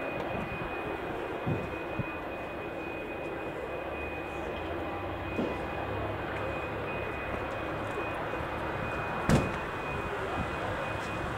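Pilatus PC-24's twin Williams FJ44 turbofans running at low power as the jet rolls slowly after landing: a steady rumble with a thin, steady high whine. A single sharp knock about nine seconds in.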